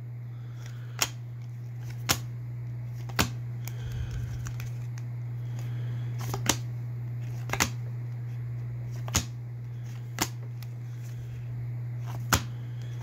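Baseball cards being flipped through one at a time, each card sliding off the stack with a sharp snap about once a second, over a steady low hum.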